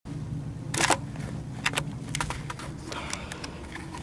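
Handheld camcorder handling noise: irregular clicks, rustles and scrapes over a low steady hum, cutting in abruptly from silence, with the loudest rustle just before a second in.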